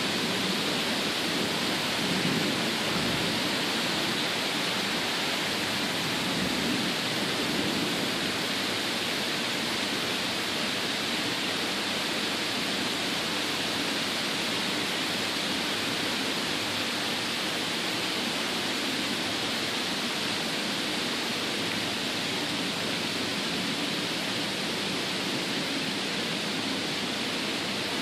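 Heavy tropical rain pouring down in a steady hiss. A low rumble of distant thunder fades away over the first several seconds.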